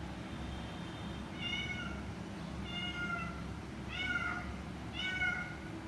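An animal calling over and over: about five short, high-pitched calls, each under half a second, roughly a second apart.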